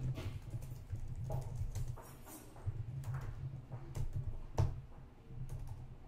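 Typing on a computer keyboard: a run of irregular key clicks, with a louder keystroke about two-thirds of the way through.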